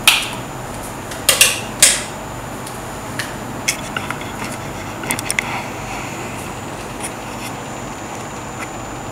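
A few sharp clicks and knocks, the loudest in the first two seconds, then lighter scattered ticks, over a steady background hiss with a faint high whine: the sounds of someone moving about and handling things while switching off the room lights.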